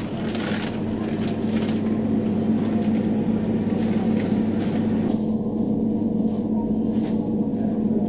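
Steady low electrical hum from a row of supermarket freezer cabinets, with a few light clicks and rustles of handling in the first couple of seconds.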